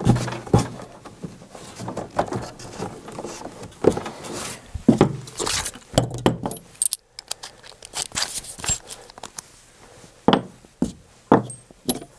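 Handling noise during reassembly: knocks and clicks as the plastic front housing of a dehumidifier is seated, then small metal bolts and tools clinking and rattling as they are picked up off a table.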